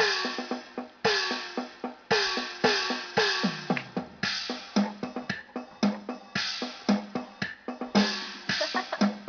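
Programmed drum-machine beat from an electronic keyboard: kick, snare and cymbal-like hits in a steady repeating pattern, starting abruptly.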